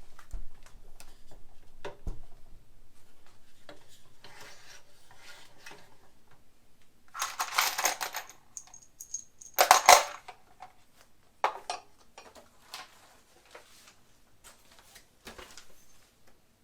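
Metal parts of a mitre saw stand being handled during assembly: scattered clicks and knocks, with two louder clanking, rattling bursts about seven and ten seconds in.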